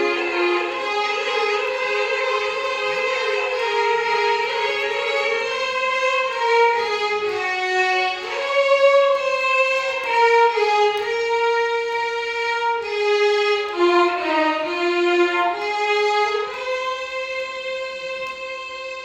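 Violins playing a Carnatic melody in one line, sliding and bending between notes. They settle on a long held note near the end, which fades a little.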